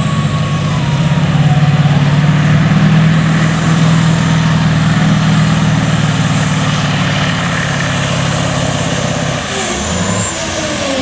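Scania pulling truck's diesel engine running hard at full throttle under the load of a weight sled: a steady heavy drone with a high steady whistle over it. About nine and a half seconds in, the engine drops off and the whistle falls away as the pull comes to an end.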